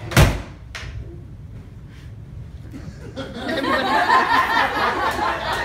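A stage-prop guillotine's blade dropping with one sharp, loud crash, followed by a smaller knock under a second later. From about three seconds in, the audience laughs and chuckles.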